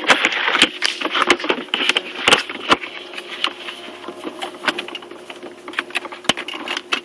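Irregular sharp clicks and knocks with rustling, over a faint steady hum.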